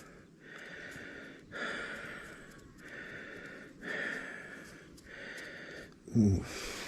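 A man breathing heavily close to the microphone: about five even breaths in and out of roughly a second each. Near the end there is a short voiced sound.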